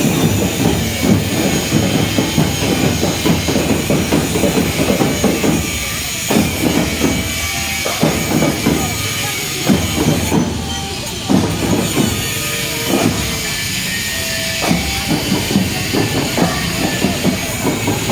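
Marching drum band playing: drums beating a fast, steady rhythm of dense strikes, with a few short held notes over it in the second half.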